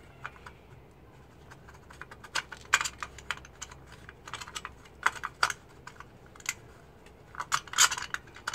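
Hand wrench clicking and tapping on a steel wheel's lug nuts as they are checked for tightness: irregular sharp metallic clicks in short clusters, the loudest near the end.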